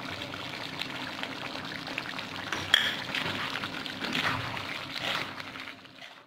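Chicken in a watery, oily masala gravy bubbling and sizzling in a kadai on medium flame, with a ladle stirring through it. There is one sharp knock about three seconds in, and the sound fades near the end.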